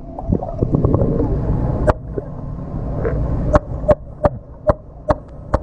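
Muffled underwater rumble as a dolphin tows a swimmer, with a single sharp click about two seconds in and then a regular run of sharp clicks, roughly two or three a second, through the second half.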